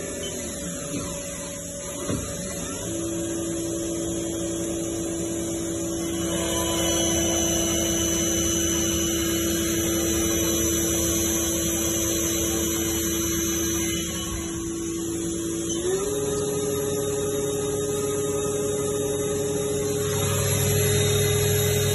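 Haas OM-2A machining center's spindle running free at about 15,000 rpm with no cut, a steady whine over the machine's hum. Its pitch steps up once, about three-quarters of the way through.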